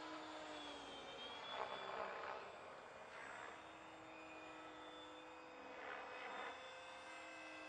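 Electric ducted fan of a radio-controlled F-16 model jet whining faintly at a distance: a steady high tone that dips slightly in pitch now and then. There are two brief swells of rushing noise, about two seconds in and near six seconds.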